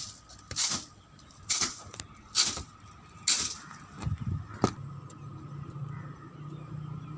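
Swishing strokes driving standing water off the surface, about one a second. A sharp click comes near the middle, then a steady low motor hum.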